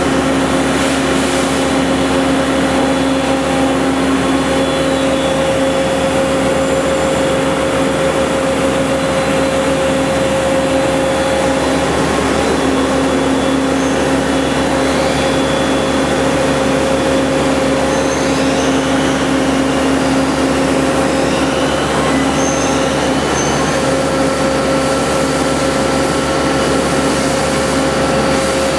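Toyoda FH630SX horizontal machining center running: a steady machine hum with two strong steady tones. Faint high whines glide up and down now and then.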